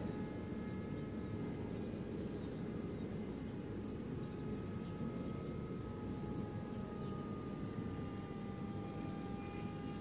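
RC model airplane's motor and propeller whining steadily with several overtones, the pitch drifting slowly, over a low steady rumble of background noise. High short chirps repeat about twice a second.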